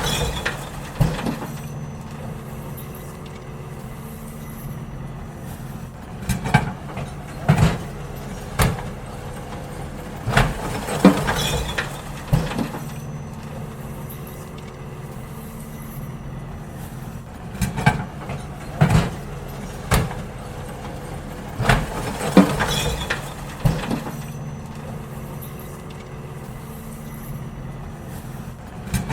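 Garbage truck engine running steadily while wheelie bins are emptied into it: loud bangs and clattering knocks come in groups every few seconds over the engine hum.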